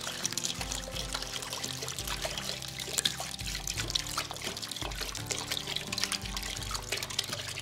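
A steady stream of water poured into a half-filled cooking pot, splashing into the water already in it, with background music playing underneath.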